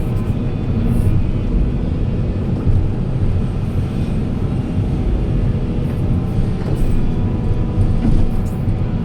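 Heavy diesel machinery engine running steadily with a deep rumble, with a few faint clicks and knocks over it.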